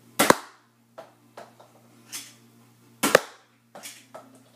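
Nerf Elite Triad EX-3 dart blaster firing: two sharp spring-plunger shots about three seconds apart, with fainter clicks and knocks between them.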